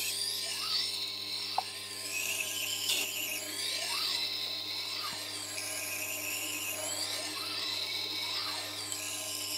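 Tormek T8 wet sharpener's motor humming steadily while a knife blade is drawn back and forth across its slowly turning water-cooled grindstone. The grinding makes a hissing scrape that swells and fades with each stroke.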